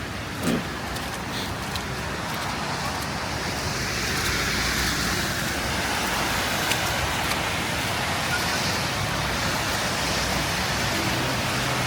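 Road traffic on a snowy street: a steady hiss of car tyres on the wet, slushy road, swelling as cars pass. A short falling sound stands out about half a second in.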